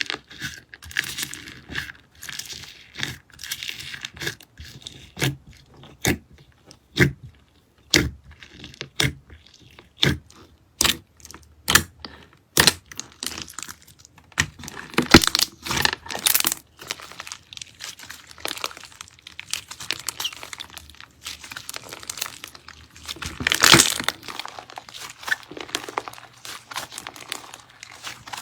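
Slime being squeezed and worked, giving irregular crackling pops and crunches, with louder bursts of crackle a few times.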